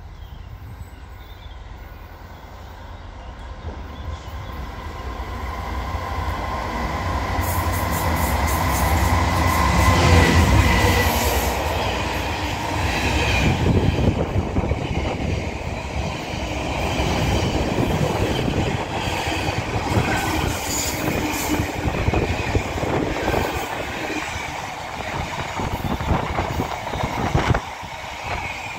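Class 66 diesel-electric freight locomotive, with its two-stroke diesel engine running, growing louder as it approaches and passes about ten seconds in. A long train of container wagons then rolls past, the wheels rumbling and clicking over the rail joints.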